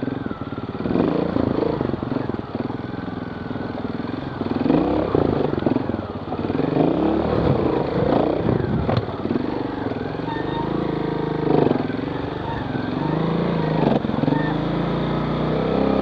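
Trials motorcycle engine revving up and down in short bursts of throttle as the bike picks its way up a rocky stream bed.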